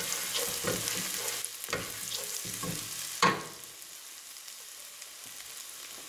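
Pressed garlic sizzling in foaming melted butter and oil in a saucepan, with a spatula scraping and stirring through the first three seconds and a louder knock about three seconds in. After that the sizzle goes on steadily, a little quieter.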